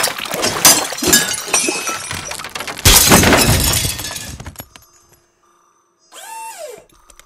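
Glass shattering in a loud, long crashing cascade of breaking pieces, with a second big smash about three seconds in that dies away over the next second and a half. Near the end comes a short pitched sound that rises and falls.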